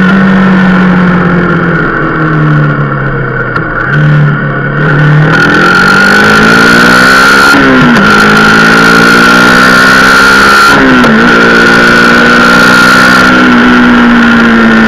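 Rieju Marathon Pro supermoto's single-cylinder engine heard while riding: the revs fall off over the first few seconds, then climb as it accelerates, with two upshifts about eight and eleven seconds in, before settling at a steady cruise.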